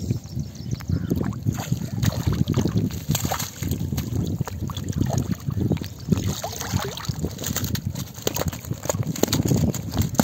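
Irregular sloshing and splashing of water.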